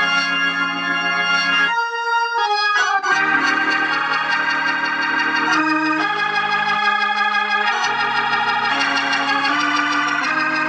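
Hammond organ playing sustained chords through an amplifier that has just had its cheap capacitors replaced, for a sound check. The chords change every second or so, and the bass notes drop out for about a second, about two seconds in.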